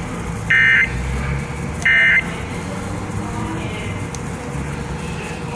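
Emergency Alert System SAME end-of-message data bursts: two short, loud, buzzy digital chirps a little over a second apart, signalling the end of a severe thunderstorm warning broadcast. A steady low hum runs underneath.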